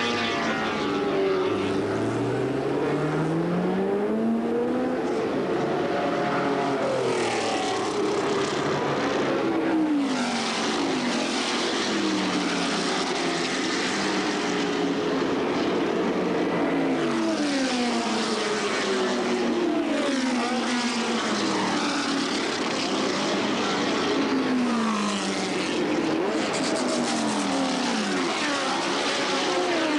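Several historic Can-Am-era sports-racing cars running at speed, one after another. Their engine notes climb as they accelerate through the gears, then drop in pitch as they pass.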